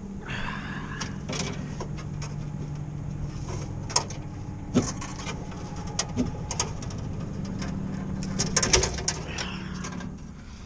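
Sharp clicks and light knocks of the old copper capillary tube being handled and worked free, several scattered and then a quick cluster near the end. A steady low hum runs underneath until near the end.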